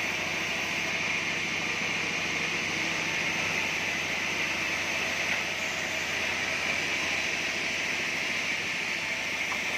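Band sawmill running, an even, unchanging noise throughout.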